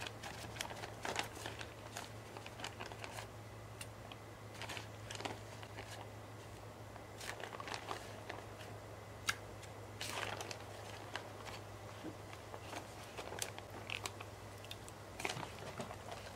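Plastic zip-top bag crinkling and rustling in fits and starts as brined chicken breasts are pulled out of it and laid in a glass baking dish, with a sharp click about nine seconds in. A faint steady low hum runs underneath.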